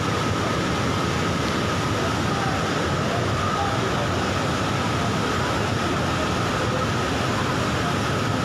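Swat River in flood: a steady, unbroken rush of fast, muddy floodwater surging over its banks.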